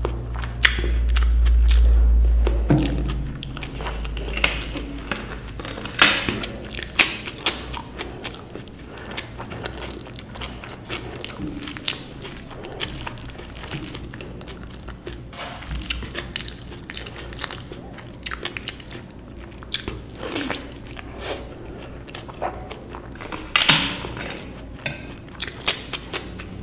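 A person eating close to the microphone: wet chewing, with sharp crunching bites in clusters. A low rumble in the first few seconds.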